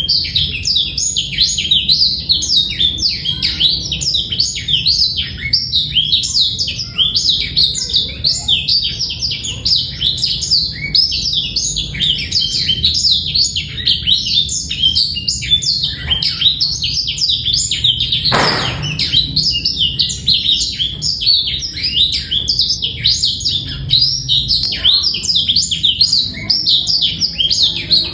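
Male black-throated canary (blackthroat) singing a long, unbroken song of rapid high twittering notes, clear and without a rattling 'terrr' trill. A short noise burst breaks in about two-thirds of the way through.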